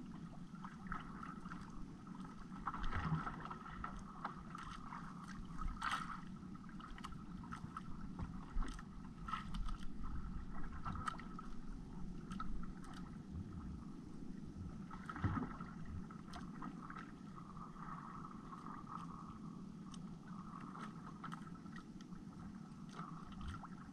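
Small outrigger boat on the sea: steady water noise around the hull, with scattered knocks and splashes every few seconds.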